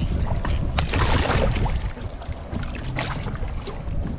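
Water splashing and sloshing at the boat's side as a cobia is held in the sea and released, over a steady low rumble of wind on the microphone, with a few sharp knocks.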